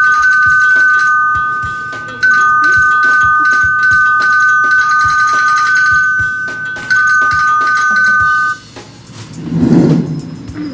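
Two-tone ding-dong doorbell chime, played as a sound effect, rung three times. Each chime rings out for a couple of seconds. Near the end a lower, rougher sound comes in.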